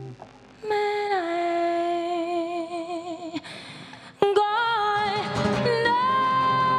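A woman singing long, sustained notes with wide vibrato over soft acoustic guitar accompaniment. There are three phrases: one swells in about a second in, a second begins past the middle, and the last is held at the end.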